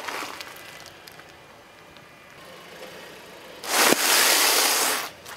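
Car tyre rolling onto a plastic bag of cornflakes and crushing them: a loud, dense crackling crunch lasting about a second and a half, starting a little past halfway, with a sharp crack near its start. A short crunch sounds right at the beginning, and a low steady car noise runs underneath.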